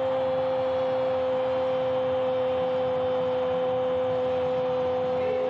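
A football commentator's long goal cry, a drawn-out "gooool" held on one steady note, over stadium crowd noise.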